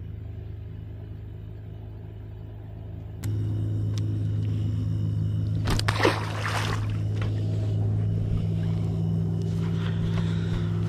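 A steady low motor hum runs throughout and gets louder about three seconds in. About six seconds in, a small released catfish splashes into the water.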